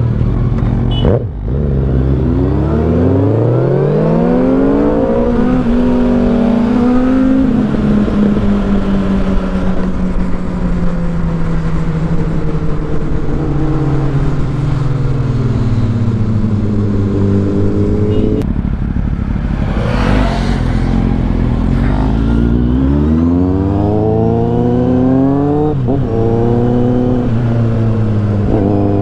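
Motorcycle engine pulling away and accelerating, its pitch climbing in the first few seconds, then holding at cruise and easing off through the middle, and climbing again near the end. A steady hiss from wind and tyres on the wet road runs underneath.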